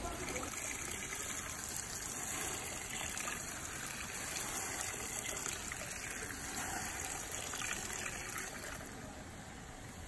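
Water poured in a steady stream from a plastic pitcher onto leaves and branches in a large pot, splashing and gushing, easing off near the end.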